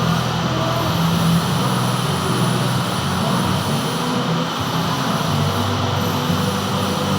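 Metal lathe running steadily while turning a gland, a constant machine hum with a faint high whine above it.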